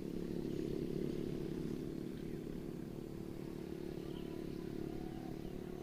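A steady low engine hum runs throughout, with a few faint bird chirps above it.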